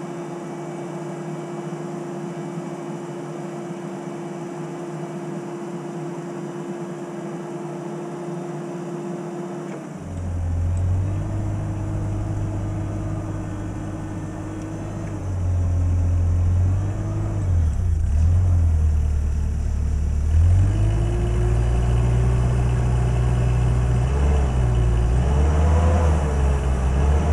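The LP-gas engine of a 2006 Combilift C6000 forklift runs with a steady whine. About ten seconds in, a deep rumble joins it and it grows louder, revving up and down with the pitch rising and wobbling while the mast hydraulics are worked.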